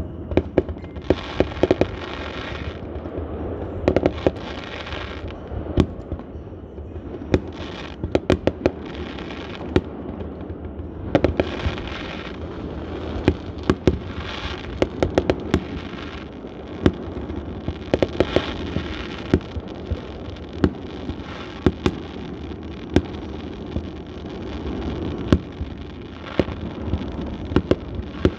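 Aerial fireworks display: a long run of sharp bangs, several a second at times, with stretches of hissing crackle between them.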